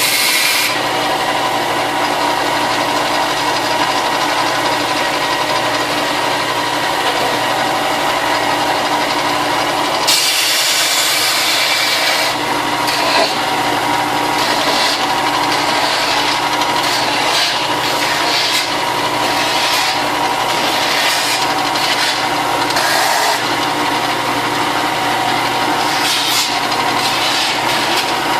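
Electric sander running steadily while plastic armor pieces are sanded. Its motor hum holds constant, and the grinding hiss rises and falls as the parts are pressed against the abrasive and eased off. It is brightest about ten to twelve seconds in.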